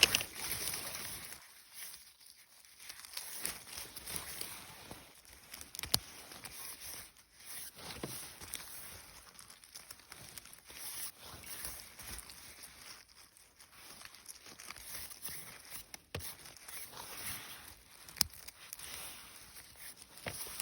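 Footsteps and rustling on the forest floor, irregular scuffs and crinkles with a few sharp clicks, as someone moves about while picking mushrooms.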